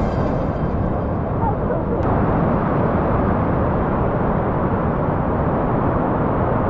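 Merced River whitewater rushing over granite slabs, loud and steady.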